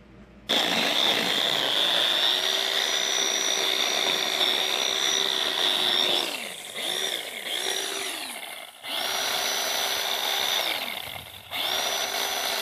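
Battery-powered chainsaw running with a steady whine as it cuts a tree stump down at ground level, through the dirt, which dulls the chain. About halfway through its pitch sags and wavers under load. It stops twice briefly and starts again.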